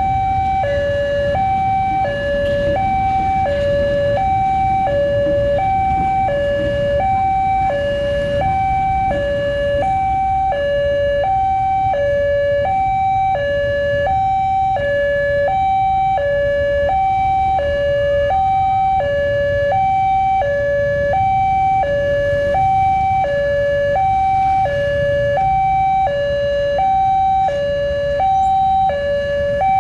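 Railway level-crossing warning alarm sounding a steady two-tone electronic chime, high then low, each tone held about two-thirds of a second and repeating without a break. A low rumble runs underneath it.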